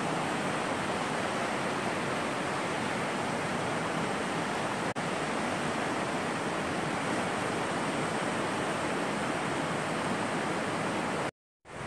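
River rapids: water rushing steadily over rocks in a shallow riverbed, cutting out briefly near the end.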